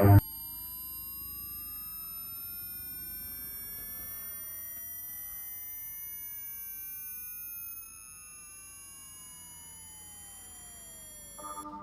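Synthesized sine tones: one slowly rising in pitch while another slowly falls, the two crossing midway, over a cluster of steady high-pitched tones. It gets a little quieter about two-thirds of the way through.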